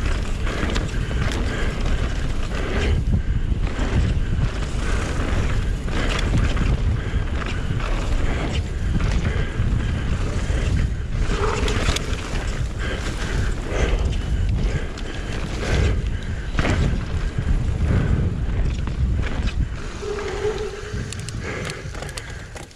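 Wind rumbling on the action-camera microphone while a mountain bike descends a rough enduro trail at speed, with frequent knocks and rattles of the bike over the ground. The noise drops off just before the end.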